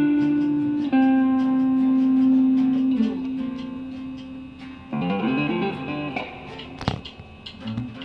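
Guitar playing a short jam: a long held note about a second in, then a quick run of rising and falling notes around five seconds in. A sharp click sounds near the end.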